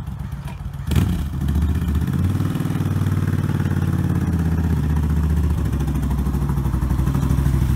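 1987 Suzuki Intruder 1400's V-twin engine running as the motorcycle rides slowly toward the listener. It jumps in loudness about a second in and grows louder near the end.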